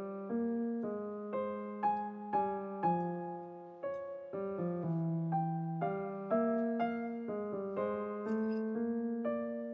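Background solo piano music: a gentle melody of single struck notes that ring and fade, about two a second.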